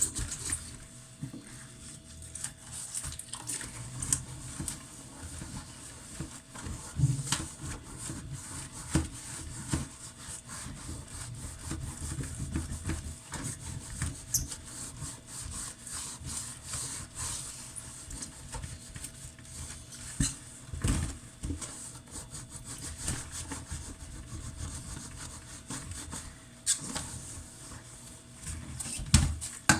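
Pots being washed by hand: irregular scrubbing and rubbing against the cookware, with occasional knocks of pots and pans.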